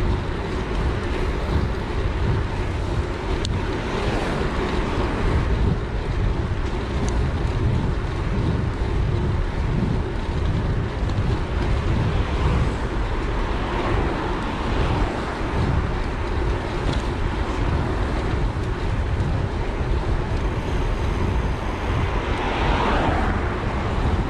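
Wind buffeting the microphone of a handlebar-mounted action camera on a moving bicycle, a steady low rumble mixed with road noise, with a louder whoosh near the end.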